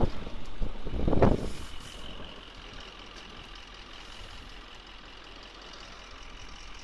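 A vehicle engine revs hard for about a second and a half, then runs more quietly and steadily with a thin high whine, as a vehicle stuck in deep snow tries to get free.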